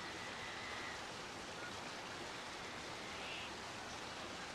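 Small shallow creek running over stones: an even, steady hiss of water.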